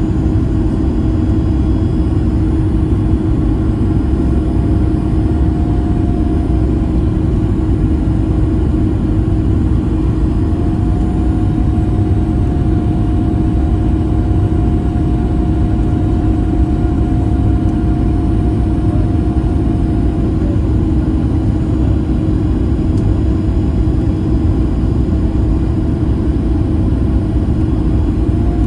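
Boeing 737 MAX 8 cabin noise on final approach, heard from inside the cabin: a steady low rumble of airflow and its CFM LEAP-1B engines, with a constant hum and a fainter higher tone that shifts slightly in pitch.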